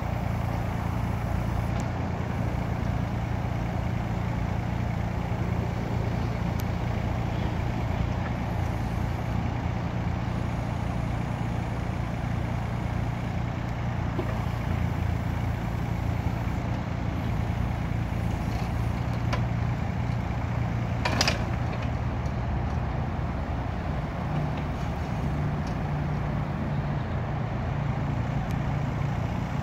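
Takeuchi TB235 mini excavator's diesel engine running steadily, with one brief sharp noise about two-thirds of the way through.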